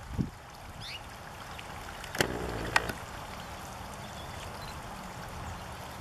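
Water trickling steadily over the rim of a concrete birdbath. Two sharp clicks come a little over two and nearly three seconds in, and a faint short high chirp comes about a second in.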